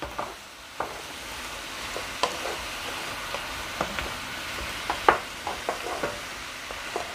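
Quail pieces, onion and peppers sizzling in a frying pan while a wooden spoon stirs them, with scattered knocks and scrapes of the spoon against the pan.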